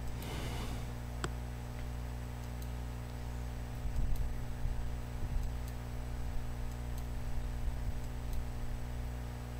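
Computer mouse clicking a few times, faint and irregular, over a steady low hum.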